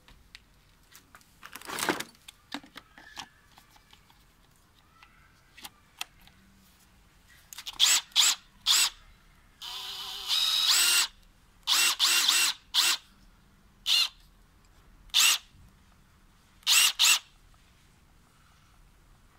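Bosch GDR 18V-200 C cordless impact driver's brushless motor whining in about ten short no-load trigger pulls, with one longer run near the middle that steps up in pitch. Before that come a few faint plastic clicks and a rustle of handling.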